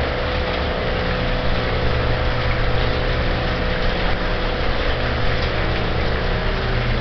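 Steady drone of the koi tanks' pumped filtration: running water from the pumps mixed with a constant low motor hum and a faint steady tone.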